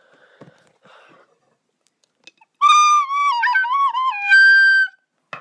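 A high, flute-like whistle lasting about two seconds, starting about two and a half seconds in. It holds a note, dips lower in a few wavering steps, then jumps to a higher held note before stopping. Faint rustling comes before it.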